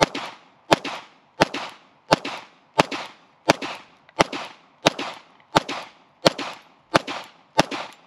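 FN 509 9mm pistol fired twelve times in a steady string, roughly three shots every two seconds, each shot sharp and followed by a short echo.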